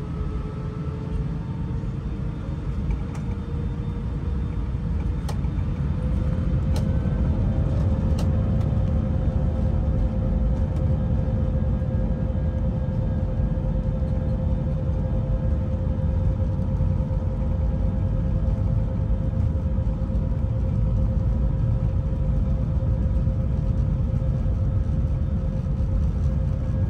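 Airbus airliner cabin noise on approach: a low rumble of engines and airflow with a steady whine that rises slightly in pitch about six seconds in as the rumble grows louder.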